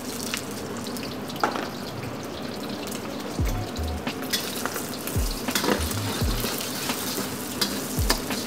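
Beaten eggs sizzling and crackling in very hot oil in a steel wok, with a metal ladle scraping and stirring them. From about three seconds in there are a few low thuds as the wok is worked on the induction hob.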